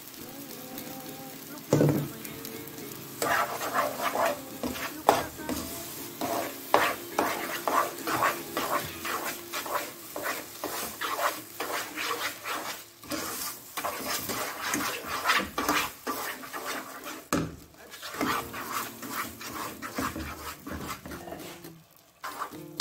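Wooden spatula stirring and scraping a thick moong dal and ghee mixture with freshly added sugar in a non-stick pan, in rapid, irregular strokes, with a knock about two seconds in.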